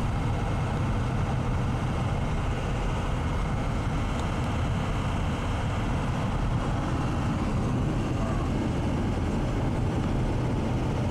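Steady low drone of a car driving along a paved road, heard from inside the cabin.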